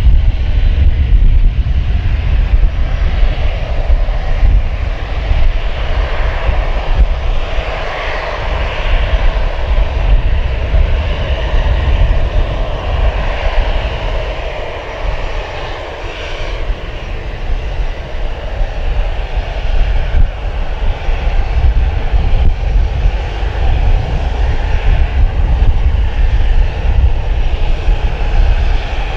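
Airbus A321ceo airliner's CFM56 turbofan engines running: a loud, steady low rumble with a broad hiss above it, easing slightly about halfway through.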